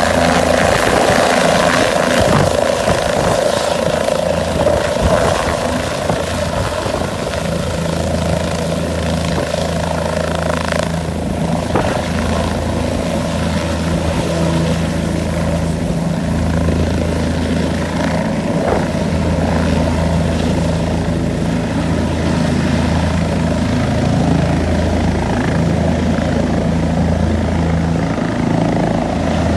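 Light helicopter's rotor and turbine running at lift-off power as it rises off the pad, hovers low and flies away. The sound grows duller near the end as it draws off.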